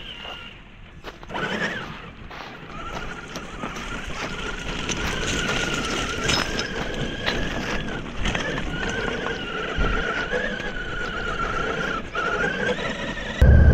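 Electric drive of an Axial SCX6 Jeep Wrangler RC crawler whining, the pitch wavering up and down with the throttle, while its tyres click and crunch over beach pebbles. Just before the end a much louder low rumble starts suddenly.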